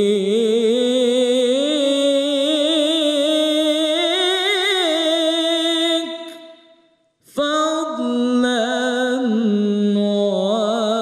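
Unaccompanied male voice chanting an Islamic ibtihal: one long held phrase that climbs slowly, full of fast wavering ornaments, fades out about six seconds in, and after a breath a new ornamented phrase begins about seven seconds in.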